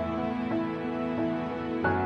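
Soft, gentle background music: sustained pitched notes that change about every half second, with a new chord struck near the end.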